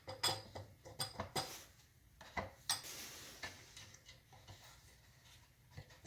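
Light metal clicks and clinks of a cut hose clamp being worked off a compressor's rubber air hose, busiest in the first couple of seconds and then only faint ticks.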